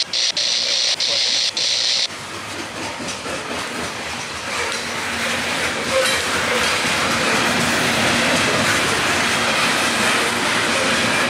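Loaded coal hopper cars rolling past on their steel wheels, a dense steady rail noise that grows louder from about four seconds in. Over the first two seconds a high steady hiss sounds, and it cuts off suddenly.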